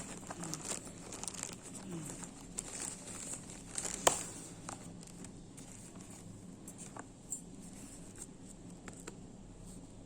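Packaging crinkling and being torn open, with irregular rustles and crackles and one sharp snap about four seconds in, then only occasional small clicks.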